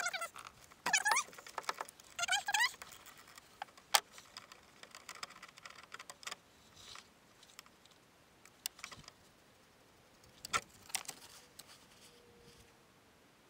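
Scattered light metallic clicks and rattles of nuts and tools as the windshield wiper motor assembly is unbolted and worked loose from its bracket in a van's engine bay. During the first three seconds a dog whines in high, rising-and-falling cries.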